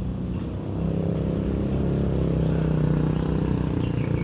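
A motor vehicle's engine running with a low, steady drone that grows louder about a second in.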